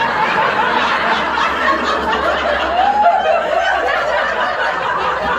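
A small group laughing and chuckling together, with short bursts of lighter laughter.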